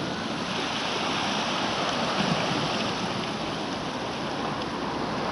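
Small sea waves washing against a rocky beach shore, mixed with steady wind on the microphone.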